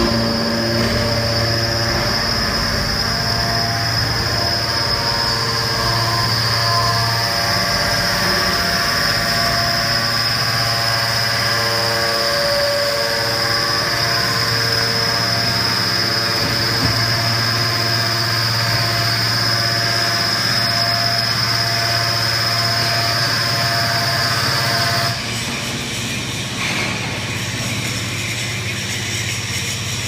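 Hydraulic scrap metal baler running: a steady low hum from its hydraulic power unit, with shifting mid-pitched tones and a constant high whine. About 25 seconds in, the whine stops and the machine runs on more quietly.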